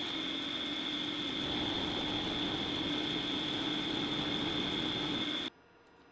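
Home-built CNC lathe running a cut with a parting tool: a steady machine whine with a high tone over even noise, cutting off abruptly about five and a half seconds in.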